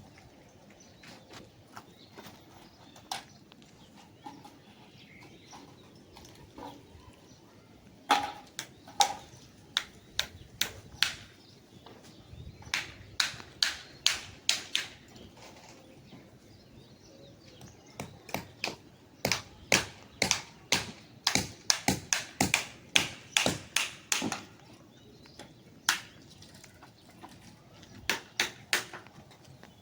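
Sharp knocks in runs of several strikes a second, with pauses between the runs, as from hammering on site.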